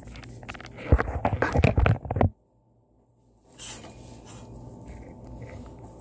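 Handling noise from the recording phone being moved and set in place: about a second and a half of rustling, clattering knocks. The sound then cuts out completely for about a second before faint room tone with a few small clicks comes back.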